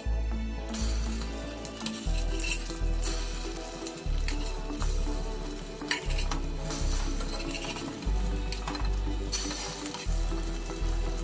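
Egg-dipped bread slices sizzling as they shallow-fry in oil in a non-stick pan, with a spatula scraping and turning them. The sizzle swells up under a second in, over soft background music.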